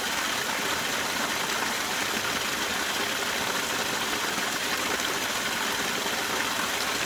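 Small waterfall on a spring-fed creek, water splashing and pattering steadily over ice formations.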